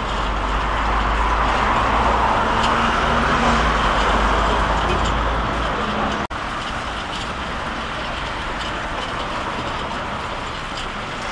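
Steady outdoor street noise with a low traffic rumble. About six seconds in the sound cuts out for an instant, and after that the low rumble is gone, leaving a lighter steady hiss.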